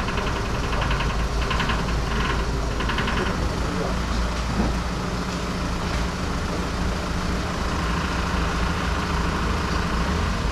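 Street traffic: truck engines idling and running as a steady low rumble, with a rapid high buzzing during the first three seconds.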